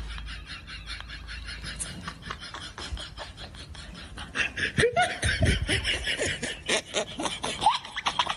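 A person laughing in quick, rhythmic bursts, louder and higher-pitched from about halfway through.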